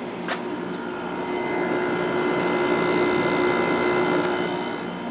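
A 2001 White-Westinghouse 5,000 BTU window air conditioner running with its LG compressor on and its GE fan motor on low, a steady hum and rush of air. There is a single click about a third of a second in. The airflow grows louder and hissier through the middle, then eases off.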